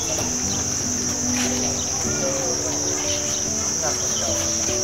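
A steady, high-pitched insect chorus drones without a break, with faint voices beneath it.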